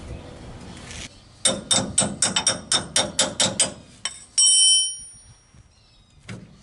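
Hand ratchet clicking in quick strokes, about five clicks a second for two seconds, as the bolt on the lower mount of a truck's rear shock is run in. Then one loud, bright metallic clink that rings briefly.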